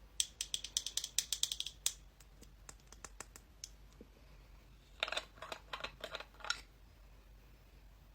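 Quick, light mechanical clicks: a fast flurry in the first two seconds, a few scattered clicks, then a second flurry about five seconds in.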